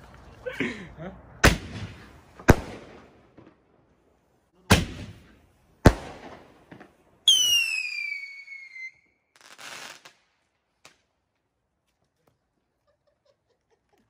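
Fireworks going off: four sharp bangs in the first six seconds, then a high whistle that falls in pitch for about a second and a half, and a short crackle about ten seconds in.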